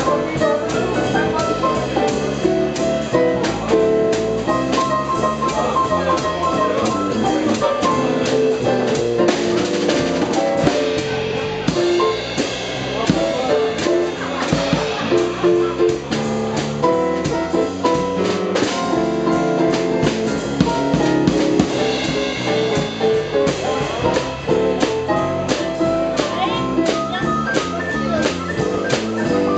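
Live jazz trio playing a swing tune: Yamaha CP1 stage piano, electric bass guitar and drum kit with cymbals keeping time.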